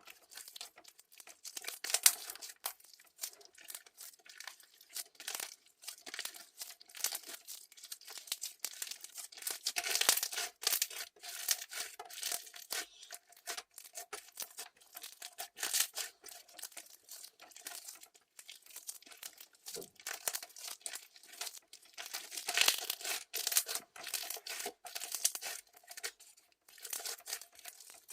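Crystal (clear) slime being squished and stretched by hand, giving a continuous run of irregular sticky crackles and pops, with louder clusters now and then.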